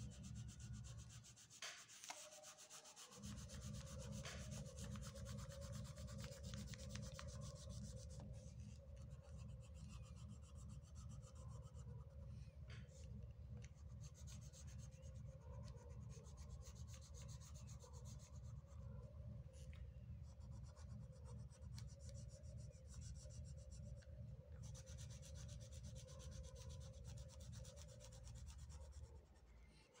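Pink oil pastel rubbing against the paper of a drawing book in faint, steady colouring strokes.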